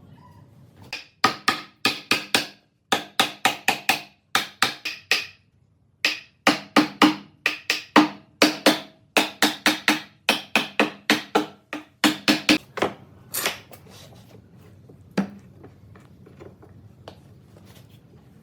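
Quick runs of sharp knocks, about four a second, each with a short ringing tone, broken twice by brief dead-silent gaps; after about thirteen seconds only a few scattered clicks remain.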